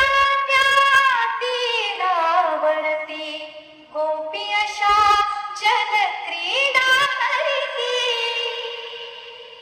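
Music with a high female-style singing voice or vocal-like synth gliding between notes, with a few deep bass thumps about a second in and around five seconds in. It ends on one long held note that fades out.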